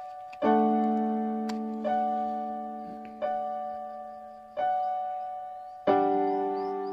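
Slow, gentle solo piano music: soft chords struck about every second and a half, each left to ring and fade, with deeper chords about half a second in and again near the end.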